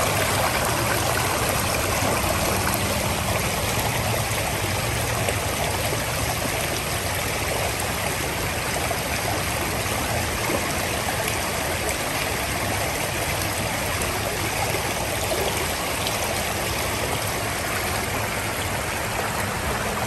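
Shallow creek running fast over rocks and gravel, a steady rush of water.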